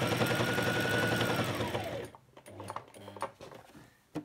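Brother SM2700 electric sewing machine stitching through uniform fabric: its motor whine and needle rattle run at speed, then the whine drops and the machine stops about two seconds in. A single sharp click comes near the end.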